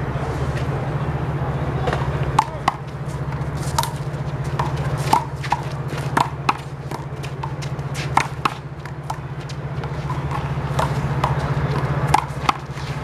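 A one-wall handball rally: sharp slaps of the rubber ball struck by hand and bouncing off the wall and ground, coming at an irregular pace, often in close pairs. A steady low hum runs underneath.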